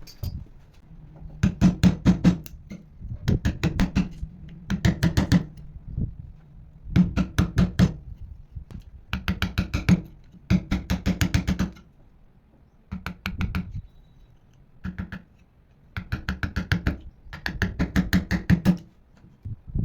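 Quick hammer blows on wood, in bursts of several strikes at about five a second with short pauses between.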